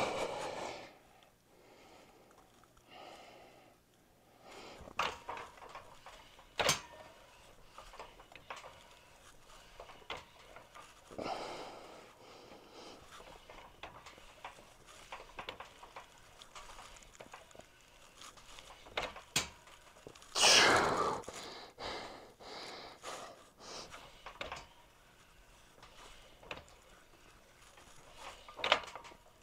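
Hard exhalations and gasps of a lifter straining through a set of incline bench presses to failure, with scattered sharp clicks and knocks from the weights. The longest and loudest breath comes about two-thirds of the way through.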